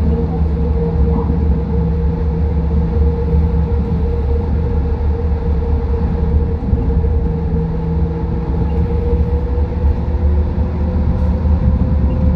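Busan Metro Line 4 rubber-tyred light-metro train running at speed through a tunnel, heard from inside the front car: a steady low rumble with a constant hum.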